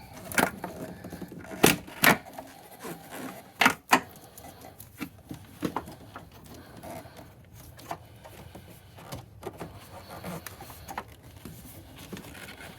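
Hands working on parts in a car's engine bay: a few sharp clicks and clacks of hard plastic and metal in the first four seconds, then softer scattered clicks and rustling.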